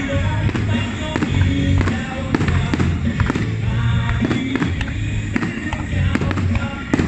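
Fireworks going off in a rapid string of sharp bangs, several a second, with music playing throughout.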